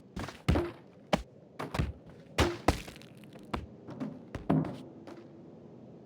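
A run of irregular knocks and thuds, about a dozen sharp hits at uneven spacing, that stop about five seconds in.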